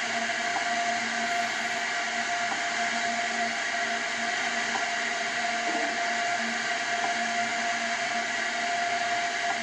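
Steady hiss with a constant hum and faint whine tones, the open-line background noise of a launch-control audio feed between call-outs.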